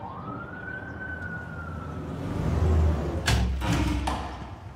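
Ambulance siren giving a single wail that rises sharply, then falls slowly. About two seconds in a loud low rumble builds, with two short hissing bursts near the end.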